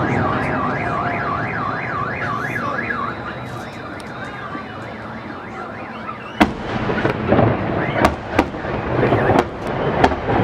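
A car alarm wailing in quick rising-and-falling sweeps, fading out about three seconds in. From about six seconds in, sharp firework bangs follow one after another.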